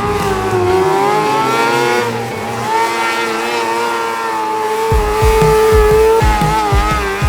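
High-revving engines of small dirt-track race cars running practice laps on a short oval, their pitch rising and falling as they accelerate down the straights and lift into the corners.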